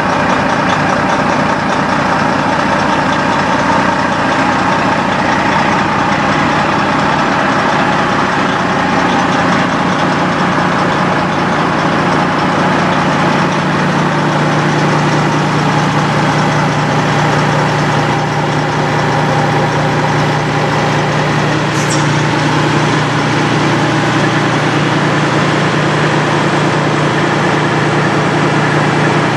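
Semi-truck diesel engine idling steadily, with a low hum that grows stronger about halfway through.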